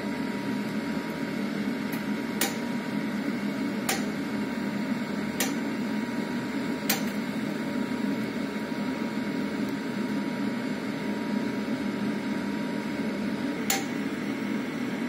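Pellet burner's combustion fan blowing hard during its cleaning cycle: a steady rushing hum with a faint whine, clearing leftover embers and unburned pellets out of the burner. Sharp clicks come about every second and a half over the first seven seconds, and again near the end.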